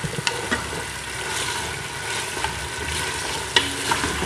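Mutton pieces sizzling in hot oil in an aluminium pressure cooker on high heat while a wooden spoon stirs them, with a few sharp clicks of the spoon against the pot. The meat is being browned until its released juices cook off.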